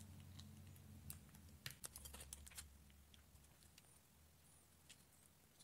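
Near silence over a faint low hum, with scattered light clicks and taps, bunched about two seconds in: small handling noises as glue is put on the ends of an aluminium strip cut from a drink can.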